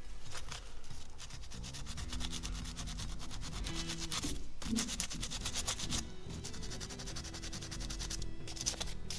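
Sandpaper rubbing in rapid strokes over the crown of a forged aluminum Harley-Davidson piston, scrubbing deposits off by hand.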